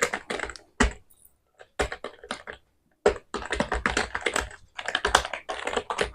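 Typing on an Elista WK 710 wired keyboard with soft keys: quick runs of key clicks with short pauses in the first half and a denser run of keystrokes in the second half.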